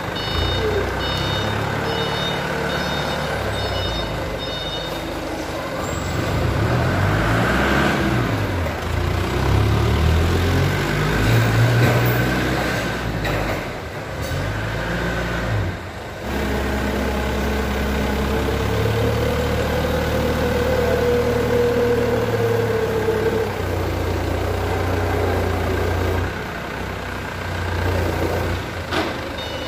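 Forklift engine running, revving up and down a few times partway through as it moves loads. Its reversing beeper chirps in quick repeats for the first few seconds.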